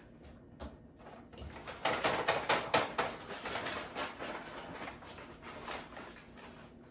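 Kitchen handling noises: a run of light clattering and rustling as packages and containers are handled on the counter, busiest about two to three seconds in.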